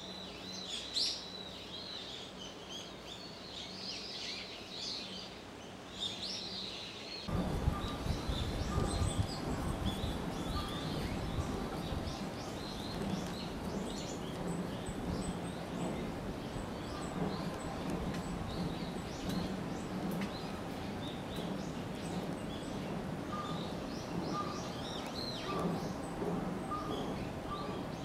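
Small birds chirping and twittering in outdoor ambience. About seven seconds in, the background turns abruptly to a louder, low rumbling noise, and the birds keep calling more faintly over it.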